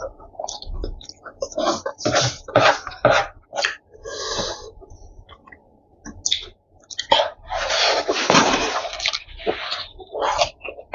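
Close-up eating sounds: wet mouth smacks, clicks and chewing throughout. Drinking and slurping from a paper noodle cup, with a longer, louder slurp about seven and a half seconds in.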